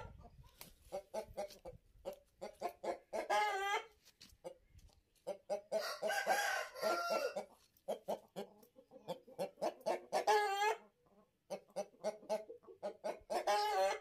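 Aseel rooster clucking in quick runs of short notes, broken about every three to four seconds by a longer drawn-out call, with a crow about six seconds in.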